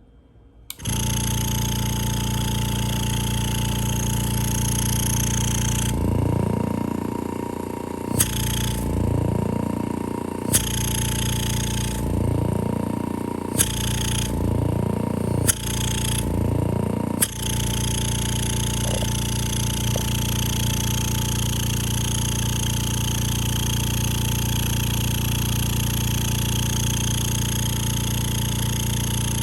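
Rocker 300 oil-free vacuum pump starting up about a second in and running with a steady hum and hiss. For about ten seconds in the middle its pitch sweeps upward again and again, broken by five sharp clicks, before it settles back to a steady run.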